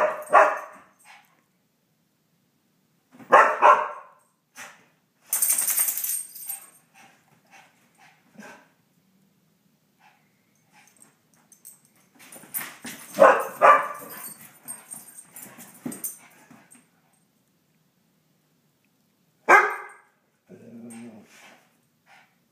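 Dogs barking in separate bursts with quiet gaps between, the longest run of barks about halfway through.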